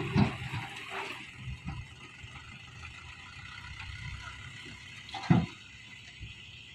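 A diesel engine running low and steady, with a knock right at the start and a loud sharp knock about five seconds in.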